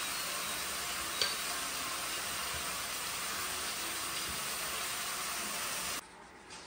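A steady hiss with one light clink about a second in.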